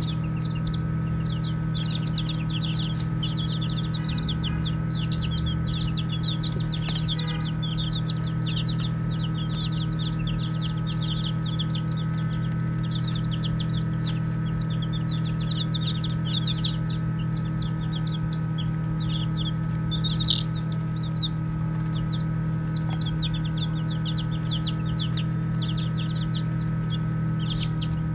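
A group of baby chicks peeping continuously, many short, high, downward-sliding peeps overlapping. A steady low hum runs underneath.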